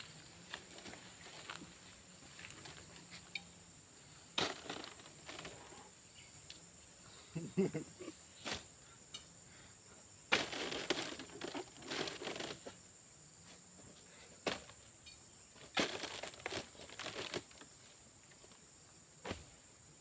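Irregular rustling and crackling of dry vegetation in short bursts, as from handling or moving through dry palm fronds, over a steady high-pitched insect drone.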